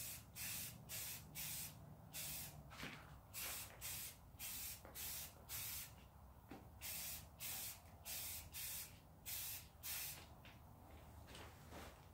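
Aerosol can of primer spraying in short hissing bursts, about two a second, stopping about ten seconds in.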